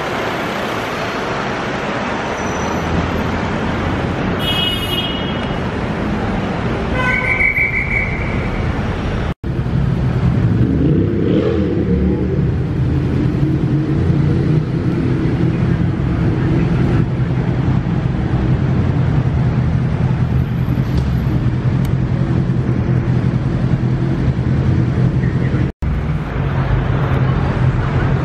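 City street traffic with two short high horn toots, about five and eight seconds in. After a cut, the steady low hum of a vehicle engine idling close by.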